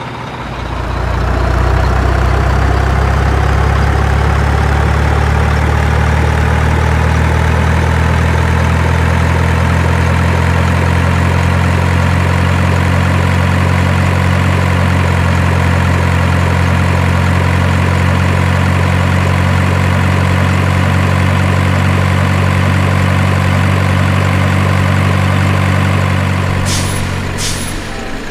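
Heavy truck engine running steadily at a low, even pitch, starting about half a second in and fading near the end, followed by a few short air-brake hisses.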